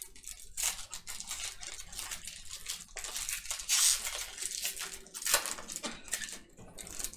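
A trading card pack wrapper being torn open and crinkled, in irregular bursts of crackling and rustling.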